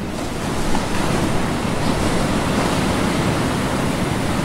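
Steady rushing sound of waves and surf, an even wash with most of its weight low down.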